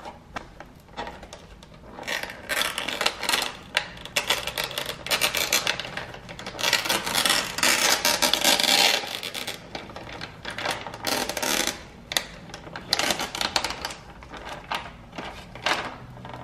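Packaging being unwrapped by hand: a printed sleeve being torn and peeled off a clear plastic clamshell salad container, with dense crinkling and crackling. It starts about two seconds in and is busiest around the middle.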